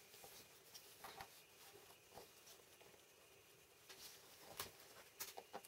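Faint clicks and rustles of thin hookup wire being handled and worked with small side cutters, a few scattered ticks, the louder ones in the second half.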